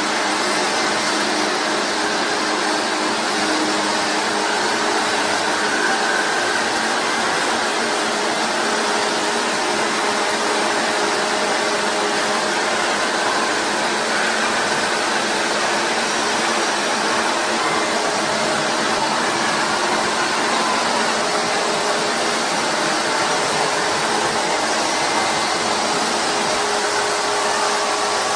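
Plantain chip processing line machinery running: a steady, even whirring noise with a faint hum, unchanging throughout.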